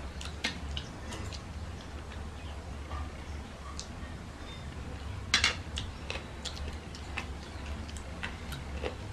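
Small wet clicks and smacks of eating rice and curry by hand, mixing and mouthing food, with a sharper clack about halfway through as a steel bowl is handled over the plate. A low steady hum runs underneath.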